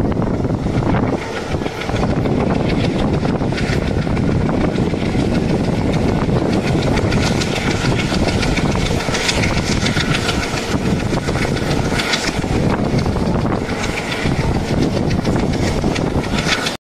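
Passenger train running along the track, heard from the coach doorway: a steady, loud rumble and rattle of wheels on rail.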